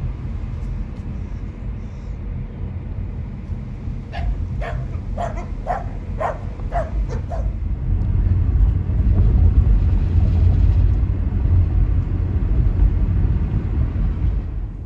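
A dog barking about eight times in quick succession, roughly two barks a second, over a steady low rumble that grows louder after the barks.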